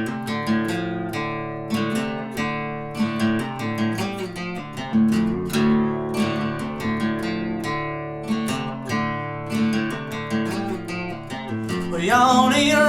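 Acoustic guitar intro, strummed in a steady rhythm; a voice begins singing near the end.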